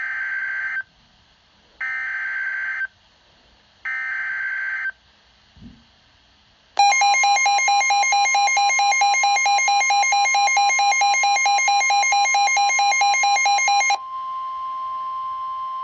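Emergency Alert System signal: three short electronic data bursts of the SAME header, about a second each with a one-second gap between them, followed about seven seconds in by a loud steady two-tone attention alarm. The alarm drops to a quieter single tone for its last couple of seconds, the alert that precedes a warning message.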